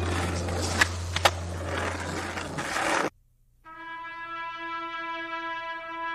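Skateboard wheels and two sharp board clacks over background music, which cuts off about three seconds in. After a short silence a held brass note begins a new piece of music.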